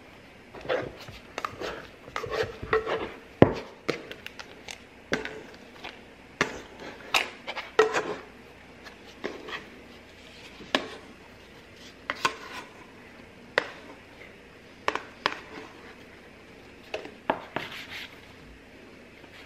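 Dough scraper scraping and knocking against a stainless steel mixing bowl as sticky sourdough is worked loose and turned out onto the counter, then the scraper cutting the dough on the countertop. The sound is a string of irregular scrapes and clicks.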